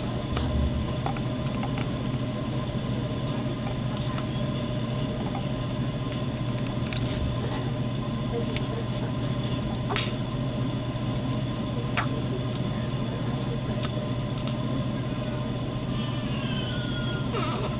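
Hiccups: a short, sharp hic every two to three seconds, over a steady low hum.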